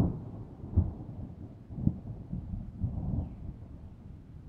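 Rolling thunder: a low rumble with deep booms about a second apart, fading toward the end.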